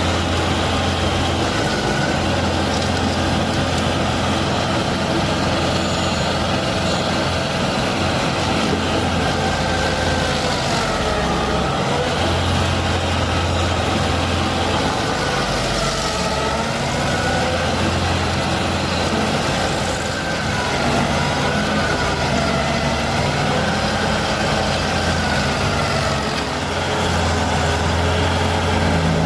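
Heavy truck engine running steadily, its pitch rising and falling a little as it works.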